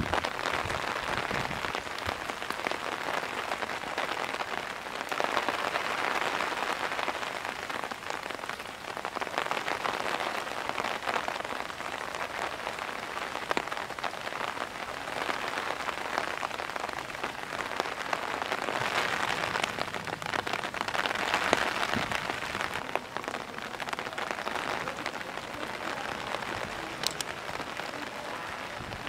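Heavy, steady rain pattering on surfaces, swelling and easing every few seconds.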